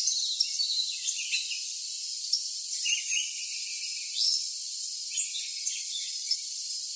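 Crickets trilling steadily in a dense chorus, with songbirds chirping and calling over them several times a second. The sound is all high-pitched, with nothing low in it.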